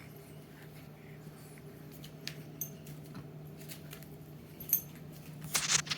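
Scattered light clicks and jingling over a steady low hum, with a sharper click past the middle and a short rustling burst near the end.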